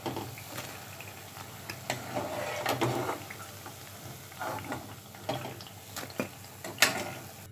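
Hot oil sizzling as fried pakoras are lifted out of the pan, with a cooking utensil scraping and clicking against the pan and plate several times; the loudest knock comes near the end.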